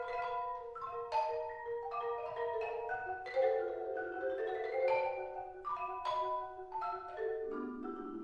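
Two marimbas played in duet with mallets: a stream of struck notes, each ringing and fading, with a few sharply accented strokes. Near the end lower notes come in and are held.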